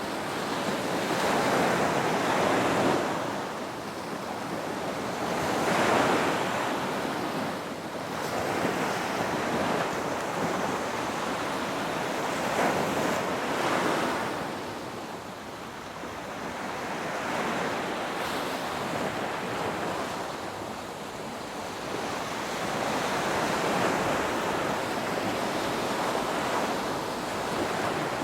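Ocean waves breaking and washing on the shore, the surf swelling and falling back every few seconds in a continuous rush.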